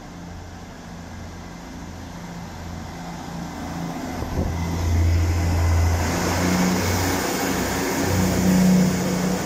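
Class 158 diesel multiple unit drawing into the platform and passing close by, its underfloor diesel engine running with a steady low hum that grows louder over the first half. A rising hiss builds in the second half as the coaches go past.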